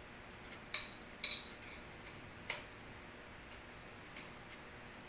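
Three light metallic clicks, about a second in, half a second later and again near the middle, as brass fittings of an oxyacetylene torch handle are handled and fitted. A faint steady high-pitched whine sits underneath.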